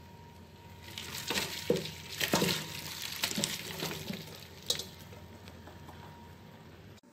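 Boiled potatoes and their hot water being tipped from the pot into a strainer to drain: a rush of pouring and splashing with irregular knocks, from about a second in until about five seconds.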